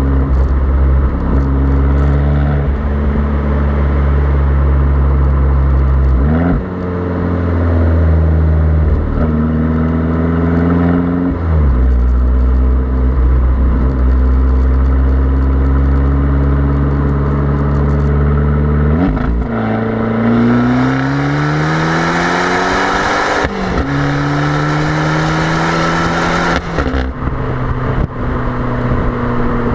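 Fiat Abarth 595's 1.4-litre turbocharged four-cylinder exhaust heard at the tailpipe: running at low revs with the pitch stepping through several gear changes, then from about 19 seconds in rising steadily under hard acceleration through two gears, loudest and brightest for about seven seconds, before the driver lifts off near the end. Wind rumbles on the microphone throughout.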